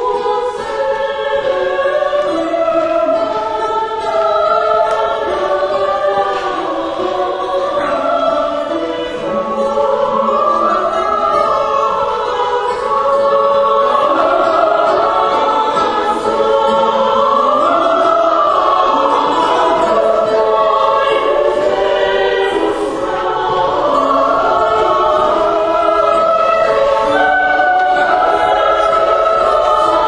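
Background music: a choir singing slow, sustained lines.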